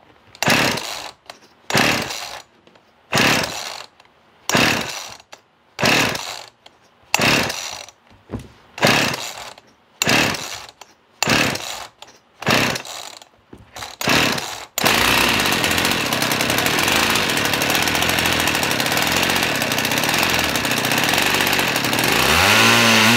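Husqvarna 50 Rancher two-stroke chainsaw being pull-started: about fifteen rasping pulls of the starter rope, roughly one a second, then the engine catches about fifteen seconds in and runs loud and steady. This is the first start after its carburetor was cleaned and its high and low mixture screws were set two turns out.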